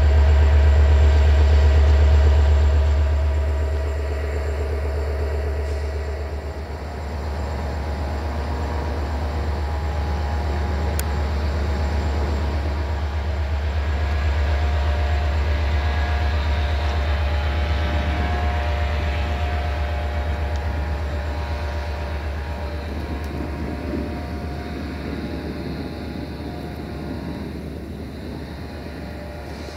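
Diesel engine of an ADH11 diesel-hydraulic railcar running as it shunts: a deep steady drone with whining tones over it. Loudest in the first few seconds, it swells again around the middle and eases off toward the end.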